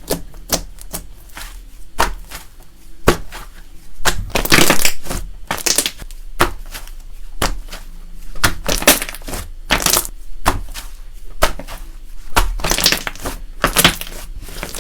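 Slime being mixed and squeezed with chocolate pieces worked into it: a run of irregular short squishing, crunching bursts, with a longer one about four seconds in.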